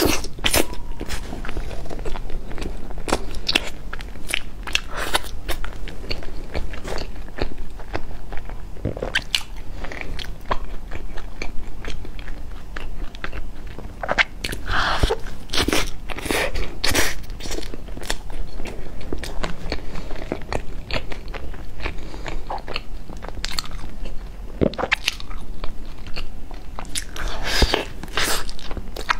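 Close-miked biting and chewing of a flaky, crumbly pastry: irregular crunches and crackles as it is bitten into and chewed.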